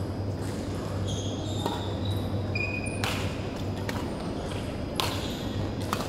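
Badminton rally: sharp racket strikes on the shuttlecock every second or two, with short squeaks of shoes on the court floor, over a steady low hum.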